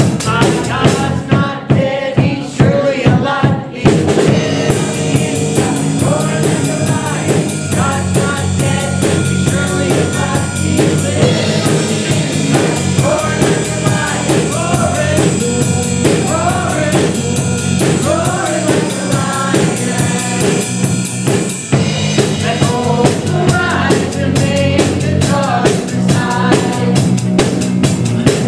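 Live worship band playing an upbeat rock song: several voices singing over electric guitar, electric bass and drums. The band gets fuller about four seconds in.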